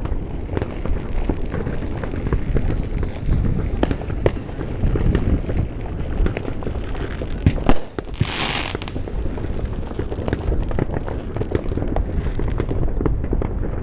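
Fireworks and firecrackers going off in a dense, overlapping run of bangs and crackles. A little past halfway comes the loudest bang, followed by a short hiss.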